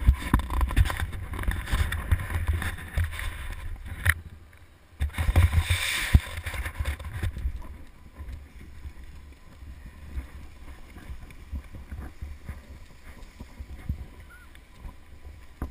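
Skis sliding and scraping over packed snow, with wind buffeting a helmet-mounted camera's microphone as a low rumble. It runs for about four seconds, comes back for about two seconds, then drops to faint clicks and shuffling once the skier has stopped.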